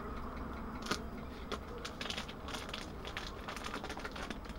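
Plastic sausage packaging crinkling and crackling in the hands as a smoked pork sausage is taken out of its pack, a dense run of small irregular crackles over a low steady hum.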